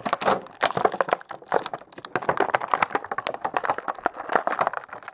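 Thin clear plastic bag crinkling and crackling as hands handle and open it, a dense run of irregular crackles throughout.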